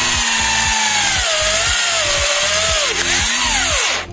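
Corded electric drill running with its chuck against the centre nut of a small 50 cc engine's pulley, its motor whine wavering and sagging in pitch under load, then dropping sharply and stopping near the end.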